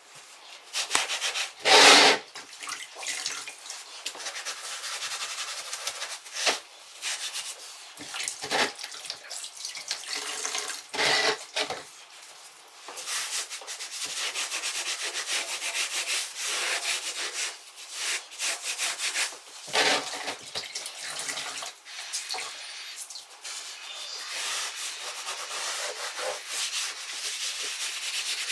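Damp rag wiping and rubbing over freshly grouted ceramic tiles to clean off the grout haze, in repeated scrubbing strokes, with some splashing as the rag is rinsed and a few sharp knocks now and then.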